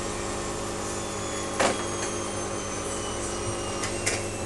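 Bauknecht washing machine running steadily with a motor hum during its spin, with two short clicks or knocks, one about a second and a half in and one near the end.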